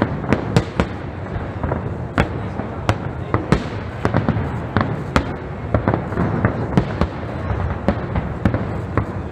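Aerial firework shells bursting in a rapid, irregular series of sharp bangs, about two a second, over a continuous low rumble from the barrage.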